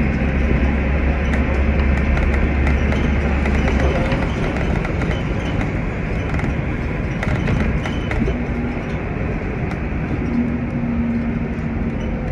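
Steady roar of jet aircraft engines around an airport apron, with a low hum that drops away about four seconds in.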